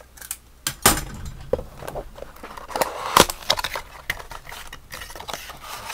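A cardboard box of trading cards being torn open and handled by hand: an irregular crackling and tearing of packaging, with a few sharper snaps about a second in and about three seconds in.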